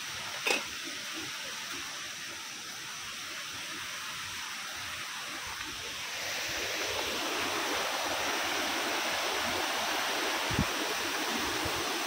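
Small waterfall pouring over rocks: a steady rushing of water that grows louder about six seconds in, with one sharp knock about half a second in.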